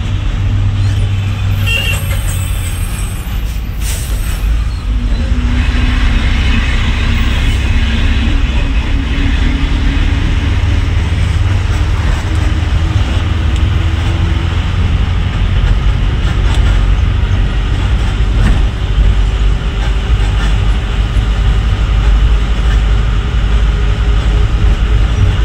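Heavy goods truck's diesel engine running under load, heard from inside the cab as the truck drives, with a deep rumble and an engine note that climbs in steps as it gathers speed. A couple of short hisses of air come in the first few seconds.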